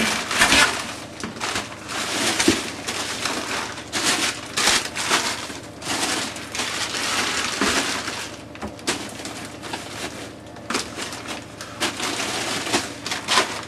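Frozen food packages being rummaged through and shoved about in a chest deep freezer: continuous crinkling and crunching of frosty plastic wrappers with frequent knocks.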